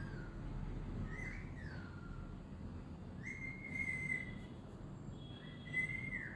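Three clear whistled notes, high and pure: a short one about a second in that swoops up and then glides down, then two longer level notes, the last near the end, all faint over low background noise.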